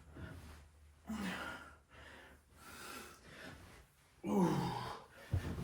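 A man breathing hard between squat reps: forceful exhales about every one and a half seconds, the loudest near the end given voice as a short falling sigh or groan of effort.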